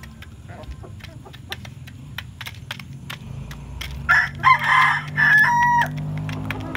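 Chickens pecking pellet feed from a metal trough: a quick, irregular run of sharp ticks as beaks strike the pellets and trough. About four seconds in, a rooster crows loudly for about two seconds.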